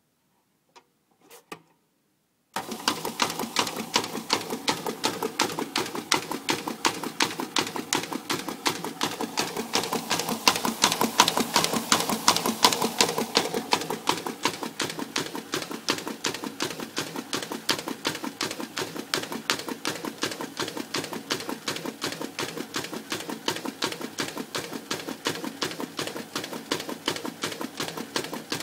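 MA50 desktop paper folding machine starting up a couple of seconds in, after a few light clicks, then running steadily as it feeds and folds a stack of sheets: a rapid, even clatter of one sheet after another.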